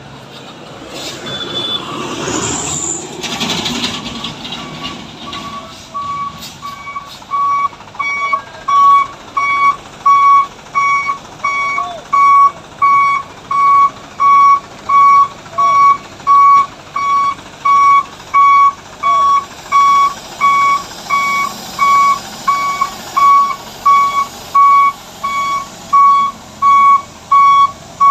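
A truck's reversing alarm beeping steadily, about once every 0.8 seconds, as a Mitsubishi Fuso 6x4 truck that ran out of power on a steep climb backs down the hill. In the first few seconds, before the beeping starts, there is a rush of noise with a brief high whistle.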